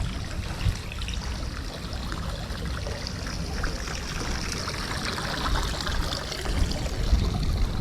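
Wind buffeting the microphone in an uneven low rumble, over a steady hiss with light crackling.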